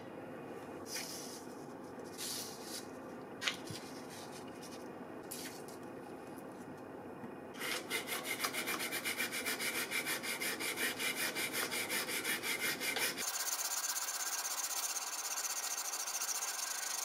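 Sandpaper rubbed by hand over a rusty metal fishing spoon on a wooden board, scouring off rust and old plating. A few light scrapes and taps come first. From about halfway through there are quick back-and-forth strokes, about five a second, which turn into a steadier scratching hiss near the end.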